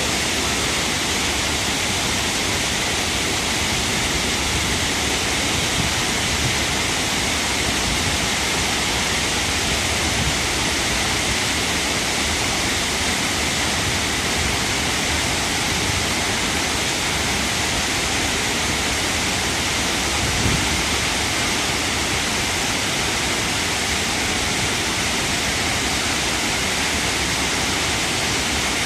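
Shiraito Falls, a wide curtain of many thin spring-fed cascades, pouring in a steady, even rush of falling water.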